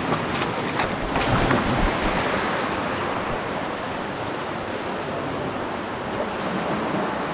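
Small waves washing in over sand and rocks in shallow surf, a steady wash of water, with wind buffeting the microphone.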